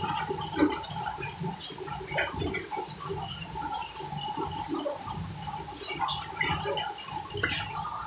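Water churning and sloshing in the tub of an LG top-load inverter direct-drive washing machine agitating on its wash cycle, over a faint steady hum from the machine. No metal knocking from underneath: the direct-drive motor has been realigned so that its rotor no longer strikes the stator.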